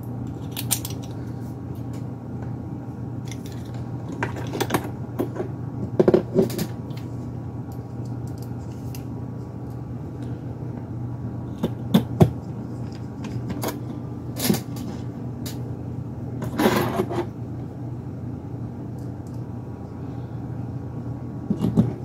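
Small metal parts being handled: a PCIe card's steel mounting bracket and its tiny screws clicking and tapping, with a screwdriver driving the bracket screws in. Scattered clicks and knocks, a pair of sharp ones near the middle and a short rattle a little later, over a steady low hum.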